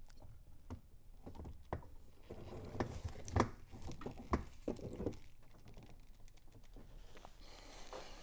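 Scattered light clicks, knocks and rustles of a 12-volt car battery being handled and lifted out of its tray by its plastic carry handle, a few knocks a little louder in the middle.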